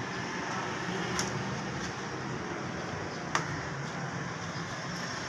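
Steady background hum with two brief clicks, one about a second in and a sharper one about three and a half seconds in.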